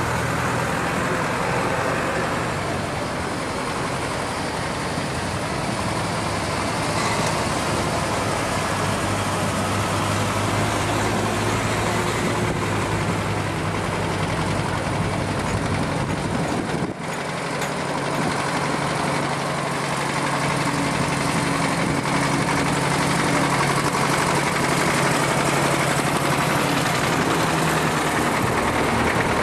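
Engines of a slow procession of old fire trucks driving past close by: a steady low engine drone that grows a little louder near the end as a truck nears.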